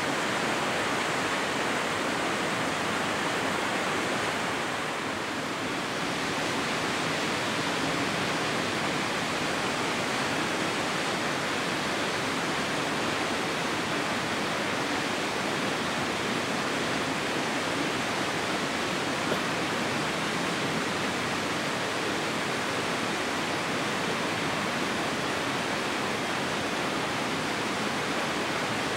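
Mountain river water rushing steadily, an even hiss with no breaks.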